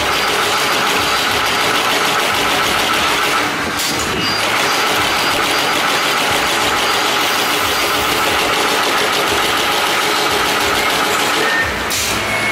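Double-colour toilet brush tufting machine running: a rapid, steady mechanical clatter as it punches tufts into a brush handle, dipping briefly about three and a half seconds in and again near the end.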